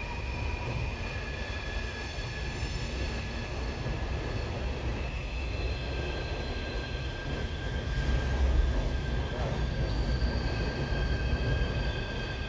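Loaded coal train's hopper cars rolling past, steel wheels squealing in long, high, steady tones that shift in pitch, over a low rumble that grows louder about eight seconds in.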